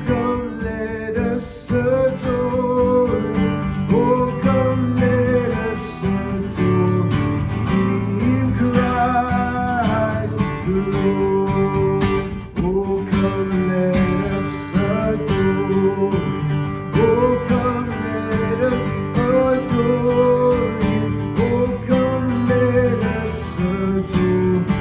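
Music led by a strummed acoustic guitar, with a gliding melody line over it.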